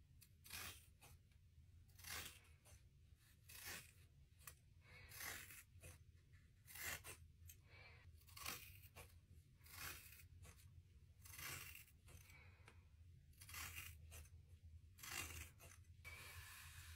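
Faint cutting strokes as long hair is thinned out with hair shears and a razor comb, about ten of them at roughly one every one and a half seconds, over a faint low hum.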